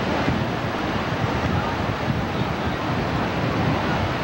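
Steady wash of ocean surf mixed with wind rumbling on the camcorder microphone.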